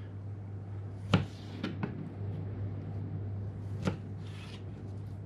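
Knife slicing a skinless Spanish mackerel fillet into strips on a plastic cutting board, the blade knocking sharply on the board about a second in and again near the four-second mark, with lighter taps in between. A low steady hum runs underneath.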